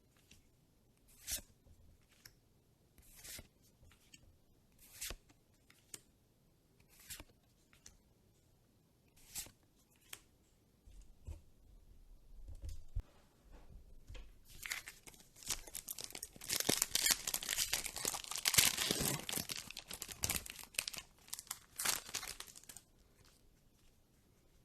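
Pokémon booster pack's foil wrapper crackling in short separate crinkles every second or two as it is handled. Then, after a few low knocks, comes a long stretch of loud crinkling and tearing as the pack is torn open.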